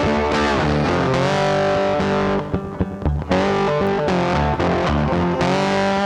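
Background music: distorted electric guitar rock with bass and drums, with a brief drop in the middle.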